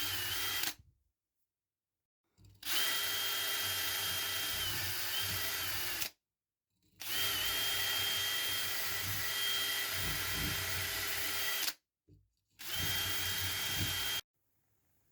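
Handheld electric power tool running at speed in four runs, each cutting off abruptly. Its steady whine sags briefly in pitch now and then as it is loaded against the workpiece.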